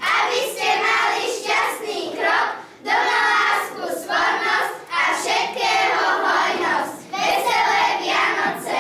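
A group of children singing together in unison, a Christmas carol sung by carolers, in phrases of a second or two with short breaths between.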